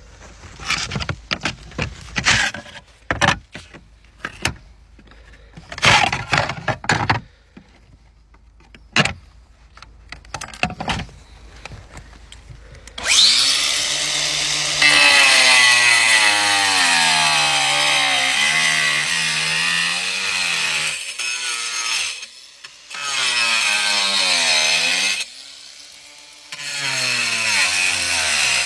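Scattered clicks and scrapes of hand tools on roof slates, then an angle grinder cutting through slate in three runs. Its whine sags and recovers as the disc bites into the stone.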